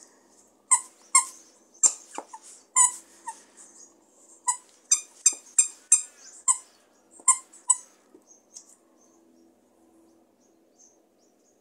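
Squeaker in a small plush bunny dog toy squeaking as a dog chews it: a dozen or more short, sharp squeaks in quick irregular succession, stopping about eight seconds in.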